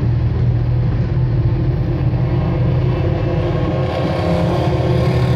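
Steady, loud low hum of running machinery, with a constant drone underneath. Its deepest part drops out a little under four seconds in.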